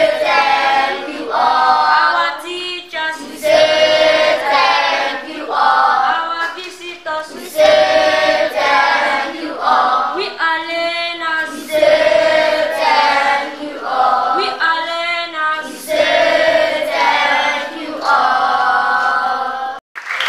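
A choir of primary-school children singing together in short phrases, with brief breaks between them. The singing cuts off sharply just before the end.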